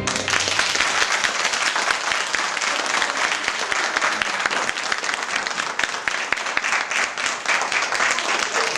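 Audience applauding: a room full of people clapping steadily.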